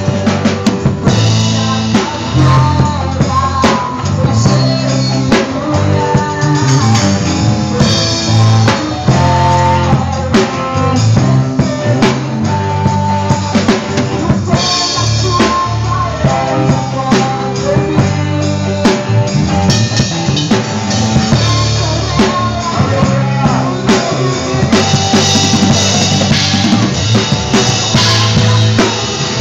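Drum kit played along to a recorded worship song, with kick drum and snare hits over the band's music.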